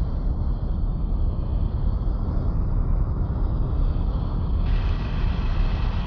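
Title-intro sound effect: a deep, steady rumble that gains a brighter hiss on top about four and a half seconds in.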